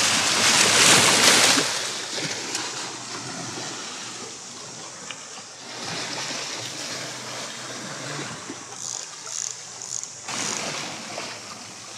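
Sea water splashing and washing against shoreline rocks: a loud surge of splashing in the first second or two, then a quieter, uneven wash.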